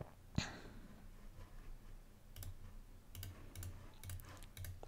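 Faint computer mouse clicks, several at uneven intervals, as marker points are placed on a map.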